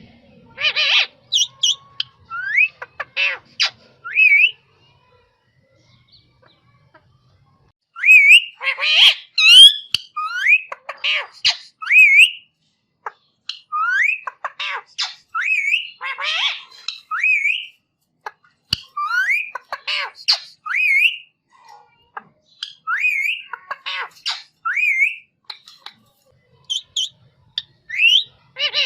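Indian ringneck (rose-ringed) parakeet calling: bouts of short harsh squawks mixed with quick rising whistled notes, with a pause of a few seconds after the first bout.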